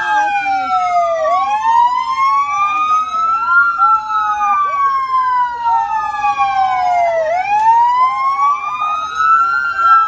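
Police car sirens wailing in slow rising and falling sweeps, two sirens running out of step so their pitches cross.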